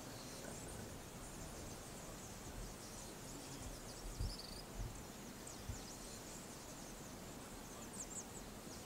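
Quiet open-air background: a steady low hiss with faint, short, high chirps of birds scattered through it, and a few soft low thumps about four to six seconds in.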